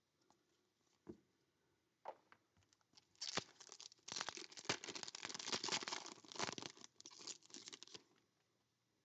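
A foil trading-card pack being crinkled and torn open by hand, a dense crackling rip that starts about three seconds in and lasts some five seconds. Before it come a couple of light taps.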